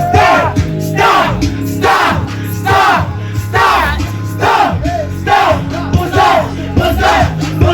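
Hip-hop backing track with a heavy bass beat, loud over a party PA, with voices yelling and chanting over it.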